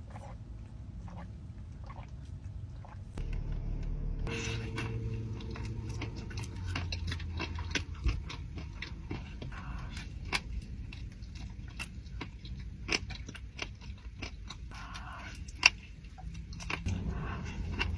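Close-up chewing and mouth sounds of someone eating donuts, with many small wet clicks and smacks scattered over a low steady background.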